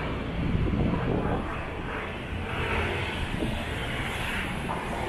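Steady rumbling city background noise, with no single sound standing out.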